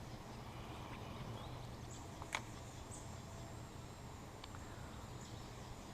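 Quiet outdoor ambience: a faint steady low hum, a few faint, short, high bird chirps, and one sharp click a little over two seconds in.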